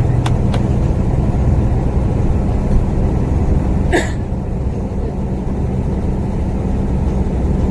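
Diesel engine of an old split-windshield bus running steadily on the road, a low 'snoring' drone heard from inside the bus. A brief sharp hiss cuts in about four seconds in.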